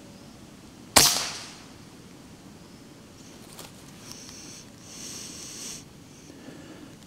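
A single shot from an Air Arms S510 Tactical .25 FAC pre-charged air rifle: one sharp crack about a second in that dies away quickly. A few seconds later come a faint click and a brief soft rustle.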